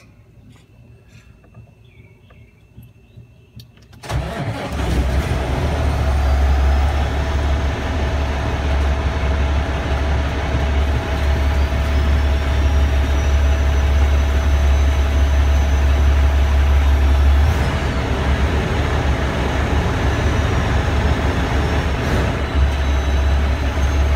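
2013 Cummins ISX CM2350 diesel in a Kenworth heavy truck starting from the cab: a few faint clicks, then about four seconds in it catches and settles into a steady, deep idle. This is the first start after the EGR sensors were replaced, and the dash shows no faults.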